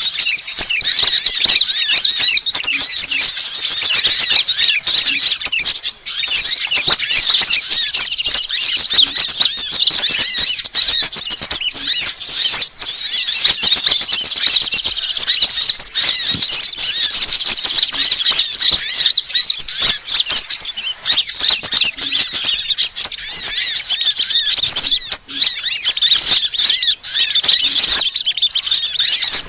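Bird-luring recording of small songbirds: many high-pitched chirps and twitters overlap in a dense, continuous chorus, played loud.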